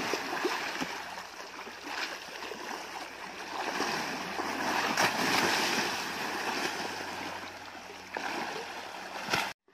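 Water sloshing and splashing as an Asian elephant rolls in shallow river water, a steady wash that swells louder around the middle and cuts out briefly near the end.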